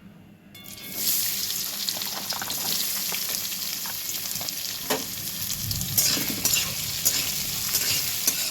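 Chopped coconut hitting hot mustard oil and ghee in a kadai, starting to sizzle loudly about half a second in with a steady crackling hiss. A spatula stirs it lightly, giving a few scraping strokes.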